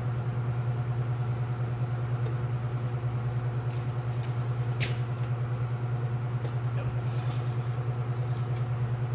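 A steady low machine drone with a fast pulsing beat, like an idling engine, with a sharp click about halfway through.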